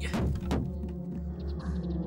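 Background music with a sustained low drone. Right at the start a quick falling whoosh sweeps down, and a second sharp hit comes about half a second in.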